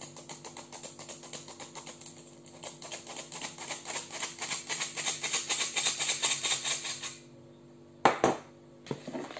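Hand-held stainless-steel flour sifter being worked over a plastic bowl: a rapid, even clicking as flour is sifted, which stops about seven seconds in. A sharp knock follows about a second later, then a lighter one.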